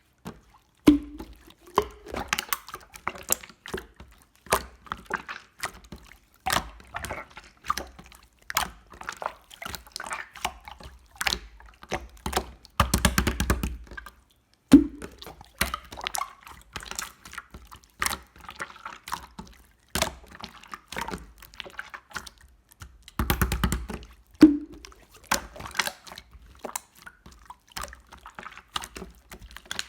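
Hands squishing, folding and poking clear slime: a steady run of small wet clicks and pops, thickening into longer squelching crackles twice, about halfway through and again near the end.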